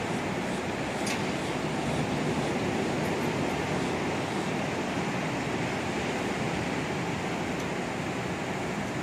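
Steady wash of ocean surf breaking along the beach, mixed with wind on the microphone, with a brief faint tick about a second in.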